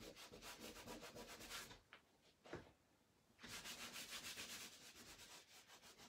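A cloth rubbing charcoal over gesso-primed paper in quick back-and-forth strokes, blending the background to a softer grey. The rubbing stops about two seconds in, then starts again a second and a half later and fades out near the end.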